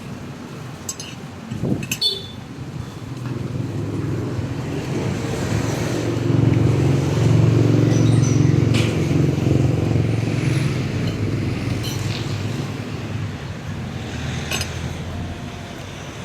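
A motor vehicle passes by: a low engine rumble that grows louder, peaks about halfway through and fades away. A few short clicks come near the start.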